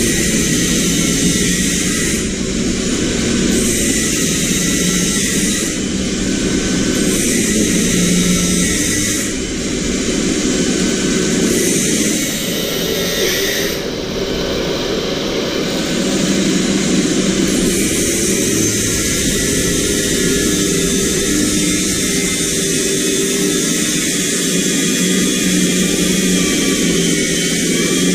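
Loud, steady machine noise with a whooshing hiss, running without a break and shifting slightly every couple of seconds.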